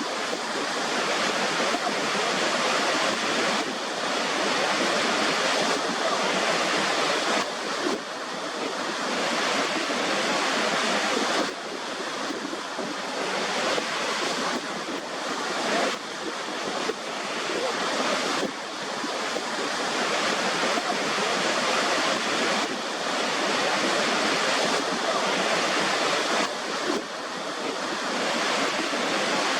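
Steady rushing water, like surf, with the level dropping or jumping abruptly every few seconds.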